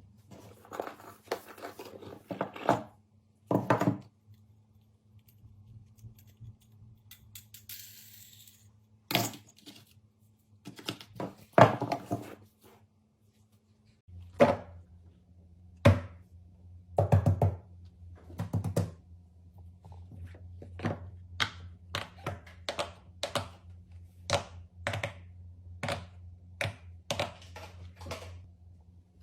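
Irregular taps, clicks and soft thunks of small craft materials being handled and set down on a hard surface, over a faint steady hum. The taps come roughly once a second in the second half, with a few sharper clicks just before that.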